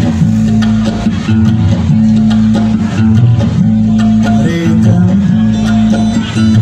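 Dangdut band playing live through the stage PA, with electric guitars over a heavy, sustained bass line.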